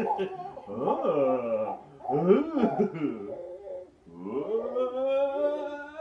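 A man and a baby making playful vocal sounds at each other: pitched calls that swoop up and down several times, then one long, slightly rising call near the end.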